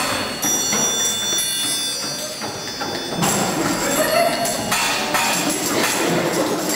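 Children's hand percussion playing: a high metallic ringing for the first few seconds, then louder jangling and rattling from about three seconds in.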